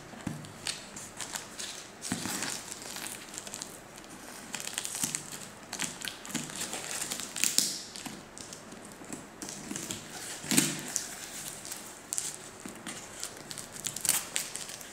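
Scissors cutting open a cardboard parcel: blades slitting and scraping through plastic packing tape and cardboard, with crinkling and tearing. The crackles and scrapes come irregularly, a few of them louder.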